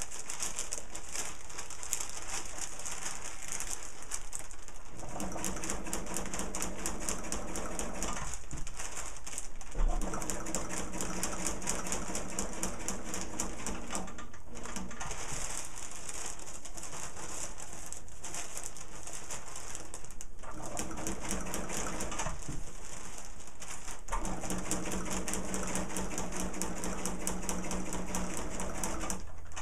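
Sewing machine stitching a long seam in several runs, stopping briefly three or four times between them while the work is adjusted.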